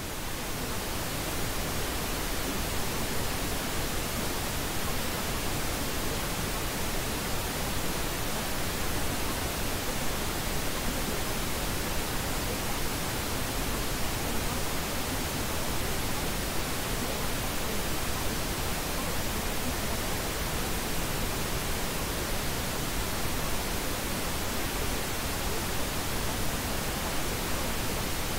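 A steady, even hiss of noise with no pattern, rising to full level within the first second: the masking track of a subliminal affirmation recording.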